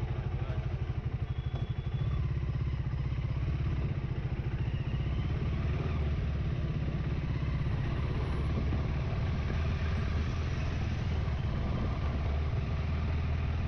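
Motorcycle engine running steadily, with an even low pulsing that is most distinct for about the first two seconds and then smooths into a constant drone.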